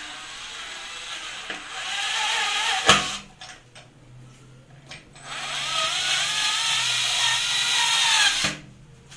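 Cordless electric screwdriver driving the centre screw of a sink's drain grate into the waste fitting. The motor whines in two runs of about three seconds each, its pitch wavering under load; the first run ends with a sharp click.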